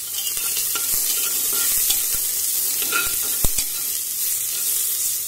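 Sliced onions sizzling in hot oil in a pressure cooker while a steel spatula stirs them, scraping and clicking against the pot, with one sharp knock about three and a half seconds in.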